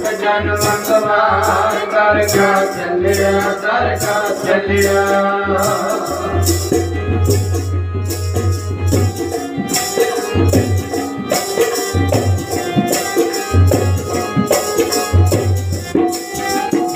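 Instrumental break in a Punjabi devotional song: a sustained melody over a steady beat of rattling percussion and low drum strokes. The melody is strongest in the first six seconds, then thins, leaving mostly the beat.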